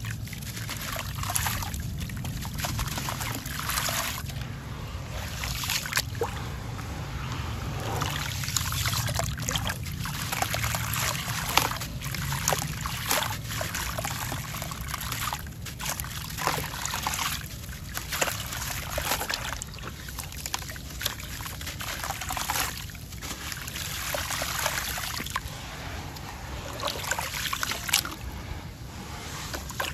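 Wet sand-cement chunks dipped and crumbled by hand in a tub of muddy water: water trickling and splashing, with many irregular gritty crumbles and splashes. Near the end, hands slosh through the muddy water.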